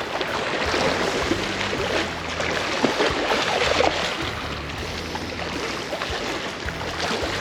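Steady rushing wash of water and wind at a seawall, with a faint low hum underneath.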